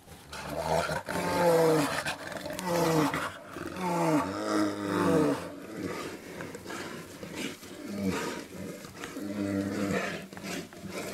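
An animal giving a series of drawn-out calls, each under a second long, that waver and fall in pitch, with fainter calls in the second half.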